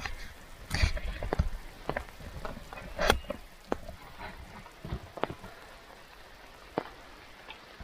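Rain: irregular sharp taps of drops landing close by, over a faint steady patter, thinning out after the first few seconds.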